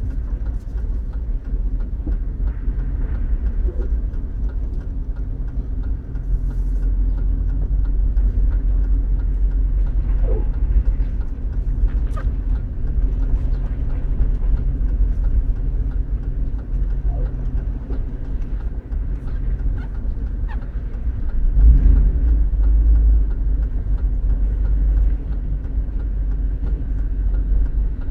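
Steady low rumble inside a moving GMC Yukon Denali, with a short creak every few seconds and a couple of sharp ticks: the creaking noise the owner is recording.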